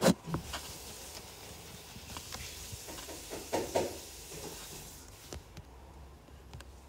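Taps and scratchy rubbing strokes on a tablet's glass screen while drawing and colouring in: a sharp tap at the start, steady scratching for about five seconds, and a few more taps about three and a half seconds in.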